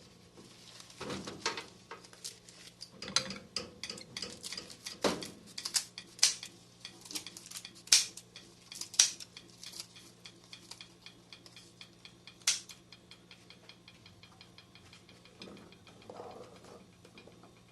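Kitchen utensils clicking and knocking as ingredients are cut up: a run of irregular sharp clicks, louder and denser in the first half, then quicker, fainter ticking near the end. A faint steady hum lies underneath.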